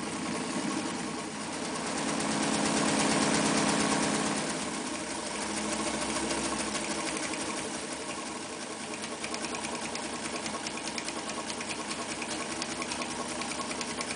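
Mitsubishi MAZ4 all-metal domestic sewing machine stitching through fabric: a fast, steady run of needle strokes, louder for a couple of seconds near the start.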